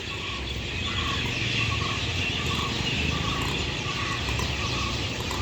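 A flock of birds calling together in a tree: a dense chorus of high chattering, with a shorter, lower call repeated about twice a second. A low rumble runs underneath.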